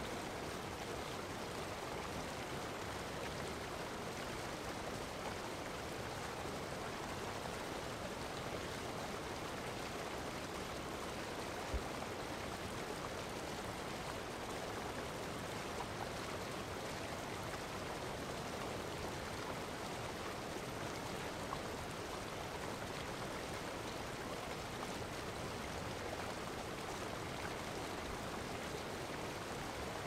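Large waterfall: a steady, even rush of falling water with no change in level.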